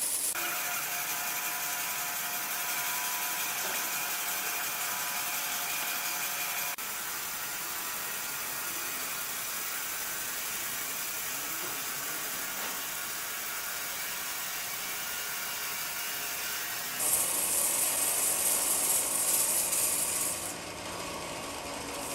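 Sawmill saw running and cutting through timber: a steady, noisy sound with a faint whine, breaking off abruptly into different stretches, with a louder, brighter stretch near the end.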